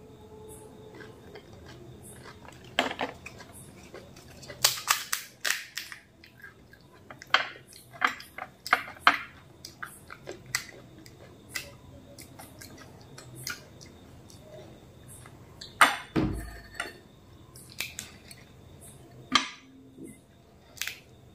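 Close-miked eating sounds of phuchka (pani puri): chewing a crunchy mouthful and cracking the crisp hollow puri shells with the fingers, with light clinks of a spoon against glass bowls. The crunches and clicks come in irregular clusters, with one louder thump about three-quarters of the way through.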